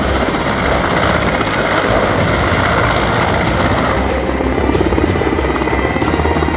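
Mil Mi-171Sh helicopter running, its rotor beating steadily over background music; the sound changes about four seconds in.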